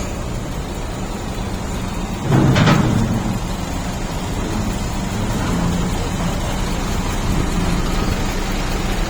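DH17 bulldozer's diesel engine running steadily, with one short, louder surge of sound a little over two seconds in.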